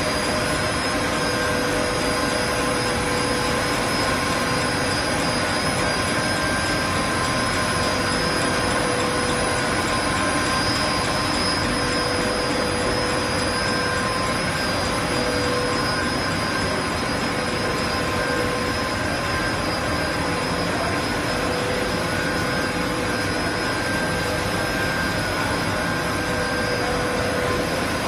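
Margarine production-line machinery, including a refrigeration compressor unit, running steadily: a constant drone with several steady whining tones over it.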